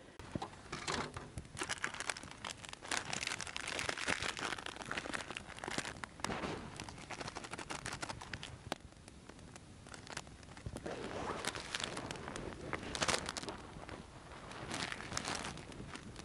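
Rustling and crackling with many small sharp snaps and clicks, coming in irregular bursts of handling, louder around the middle and near the end.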